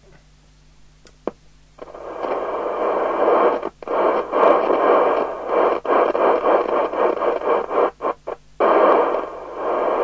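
CB radio's receiver hiss from its loudspeaker, coming up about two seconds in and cutting out abruptly several times as the dirty concentric front control is worked.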